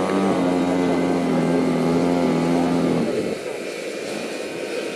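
JetCat PHT-3 model-helicopter turbine during its start-up sequence: a steady low whine that cuts off about three seconds in, leaving a rushing hiss with a faint high whine.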